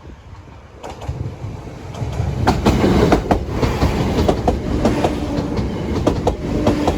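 Train passing over a level crossing at close range. The wheels rumble and click over the rail joints, growing louder about two seconds in.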